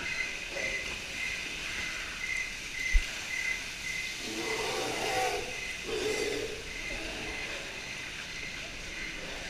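Steady hiss of water and ride noise inside a dark log flume ride. A faint high chirp repeats about twice a second, with one knock about three seconds in and a few short call-like sounds, likely from the ride's scenery effects, between about four and six seconds in.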